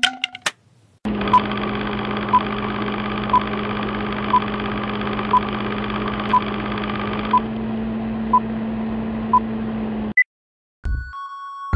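Vintage film countdown-leader sound effect: a steady hum and hiss with a short beep once a second, nine beeps in all, cutting off suddenly about ten seconds in. A few clicks come just before it starts.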